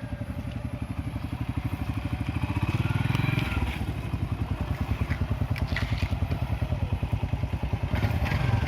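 Vehicle engine running under way, its revs climbing over the first three seconds or so, then dropping back and holding steady, with a few light knocks a few seconds later.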